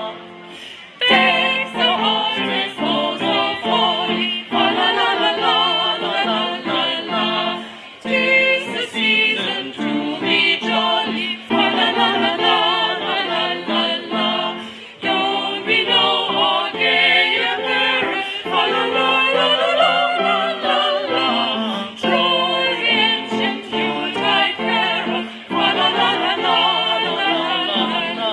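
Recorded choir singing a Christmas carol, several voices in sustained harmony.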